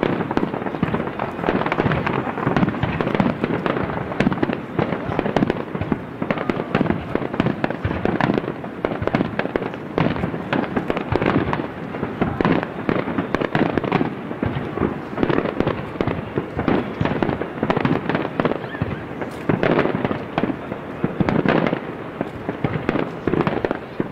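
Fireworks display: many shells bursting in quick succession, with overlapping bangs following one another without a break.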